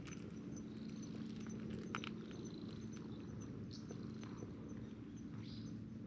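Stray cats being stroked by hand: soft rustling with scattered light clicks and a sharper tick about two seconds in, over a steady low hum.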